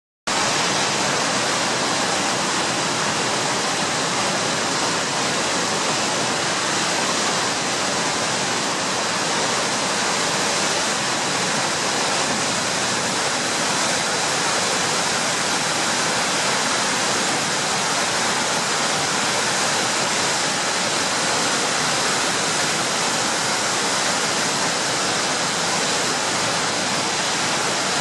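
Danube water rushing through the open spillway gates of the Freudenau hydroelectric dam: a steady, loud wash of churning white water below the weir.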